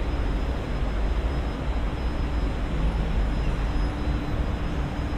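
Steady rumble of road traffic on a busy multi-lane elevated highway, with a low hum that grows a little stronger about three seconds in.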